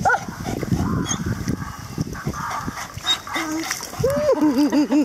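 A dog giving a short yip at the start, then whining in a quick run of five or six short rising-and-falling calls near the end, eager for the toy being held out.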